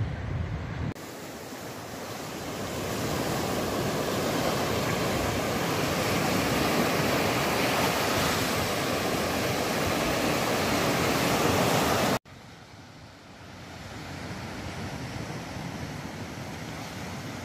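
Sea surf breaking and washing up a sandy beach: a steady rush that builds over the first few seconds, cuts off abruptly about twelve seconds in, and carries on more quietly after.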